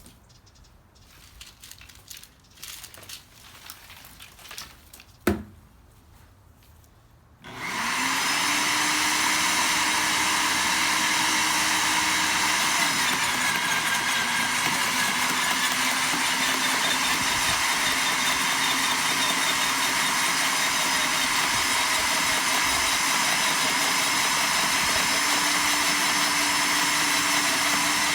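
A few light clicks and a sharp knock, then the Sun Joe CJ603E's 15-amp electric motor starts about seven seconds in, spinning up and running loudly and steadily with a whirring hum. The hum drops in pitch for a stretch about halfway through, then comes back up.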